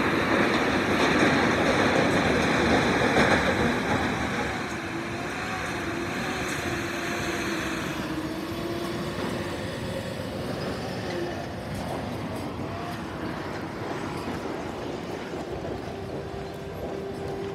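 Heavy truck engines running as a line of trucks moves off, loudest over the first few seconds and then settling into a steady drone.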